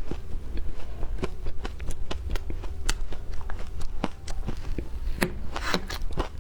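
Close-up biting and crunching of frozen shaved ice: an irregular run of sharp cracks and crackles, thickening into denser crunching about five and a half seconds in.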